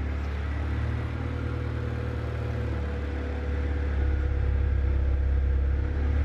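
Honda Civic coupe's four-cylinder engine idling, a steady low exhaust rumble that gets a little louder about four seconds in.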